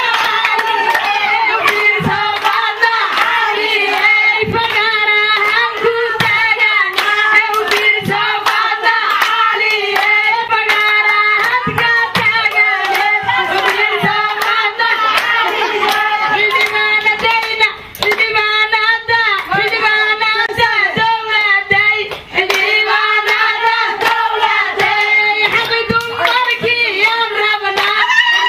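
Group of women singing a Somali buraanbur to steady rhythmic handclapping.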